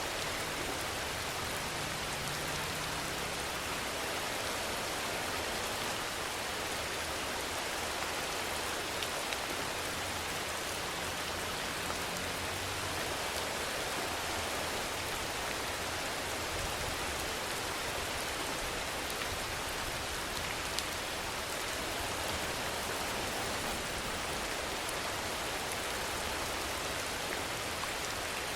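Steady rainfall hissing evenly, with a few individual drops ticking out now and then.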